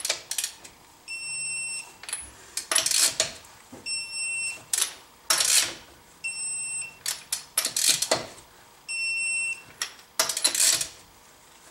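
Torque wrench on a Dodge Nitro's wheel lug nuts: short bursts of ratchet clicking as each nut is drawn up, then a steady electronic beep of about two-thirds of a second when the nut reaches its set torque. The beep comes four times, about every two and a half seconds.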